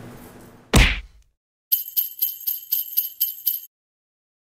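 A loud, short hit about a second in, then jingle bells shaken in an even rhythm, about four shakes a second for two seconds, cutting off sharply: the sound effect of a title-card intro sting.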